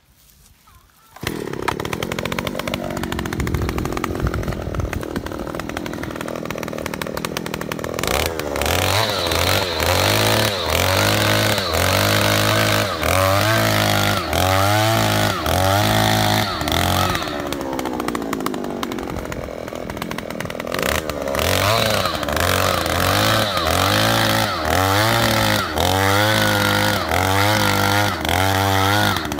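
Small 54 cc two-stroke engine of a gasoline earth auger starting up about a second in and running, then revving up and down in repeated surges about once a second as the 300 mm auger bit bores into soil.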